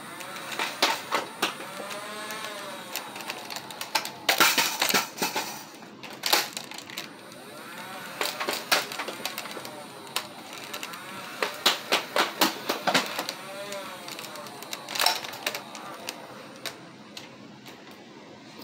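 Nerf Modulus Regulator flywheel blaster fired in short bursts: the flywheels whir up and wind down between volleys, with rapid clicks as the darts are pushed through. The volleys repeat several times and stop near the end.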